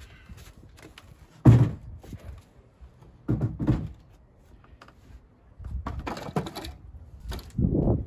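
Wooden knocks and thumps as a wooden cabinet frame is pulled out and moved about, with scraping between them; the loudest knock comes about one and a half seconds in, with more around the middle and near the end.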